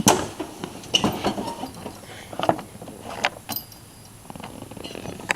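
A few separate knocks and clunks from handling, the loudest right at the start and about a second in; the engine is not yet running.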